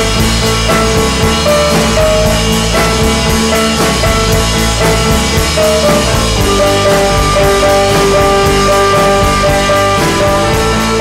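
Background music: a drum kit keeping a steady beat under held melodic notes.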